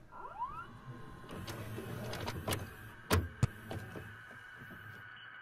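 VHS video cassette player mechanism loading and starting a tape: a short rising whir near the start, then a motor whirring over a low hum, with several clicks and two sharp clunks a little past the middle.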